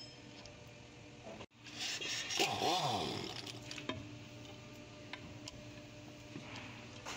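Metal scraping and clinking as a screwdriver pries at the rear differential cover of a 2002 Dodge Ram 1500 to break it loose and drain the gear oil. A loud scrape with a falling squeal comes about two seconds in, then scattered light clicks.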